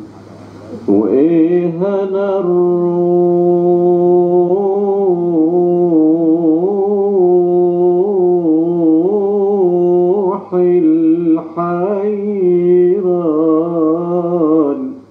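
Arabic song: a male voice holding long, ornamented notes without clear words over a steady low drone. It breaks off briefly about ten seconds in and again a second or so later.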